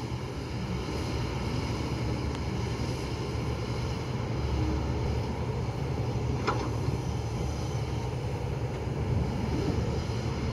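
Kobelco hydraulic excavator's diesel engine running steadily as it digs soil, a low rumble throughout, with one brief sharp clank about six and a half seconds in.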